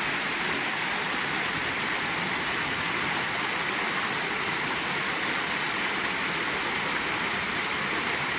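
Storm runoff water cascading down a flight of concrete steps in a series of small falls, a steady rushing splash.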